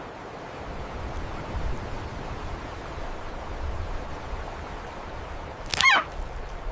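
Steady rushing of river water, with one short, wavering high-pitched bird cry about six seconds in.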